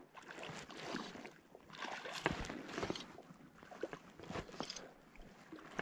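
Faint, irregular swishes and light water sounds of fly line being stripped in by hand from a small boat.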